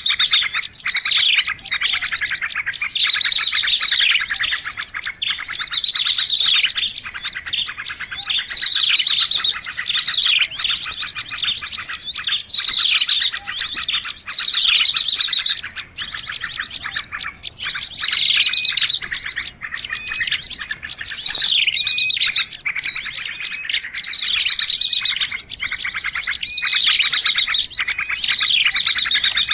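Small songbirds chirping and twittering in a dense, unbroken chorus of quick high notes that sweep downward, mixed with fast trills. It is a lure recording for calling small birds in.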